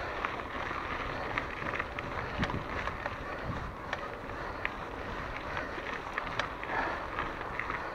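Mountain bike rolling along a dirt singletrack: steady tyre and wind noise with frequent small clicks and rattles.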